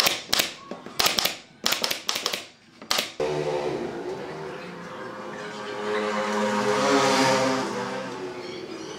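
Pneumatic brad nailer firing a quick run of about eight shots into pine framing. It cuts off about three seconds in, and a steady droning sound follows that swells and fades.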